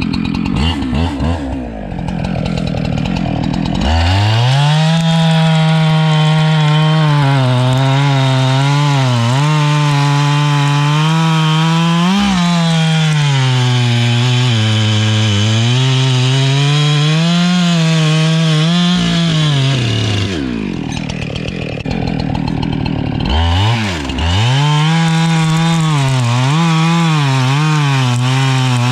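Husqvarna chainsaw idling, then run up to full throttle and cutting a log, its pitch sagging and recovering again and again as the chain bites into the wood. A little past the middle it drops back to idle for a few seconds, then goes back to full-throttle cutting.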